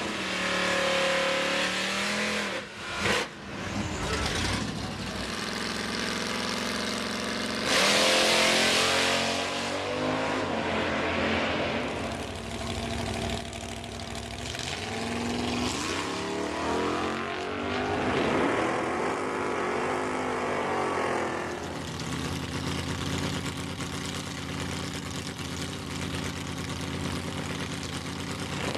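Drag racing cars' engines revving and running hard, the pitch climbing and falling back again and again as they rev and shift, with a loud surge about eight seconds in.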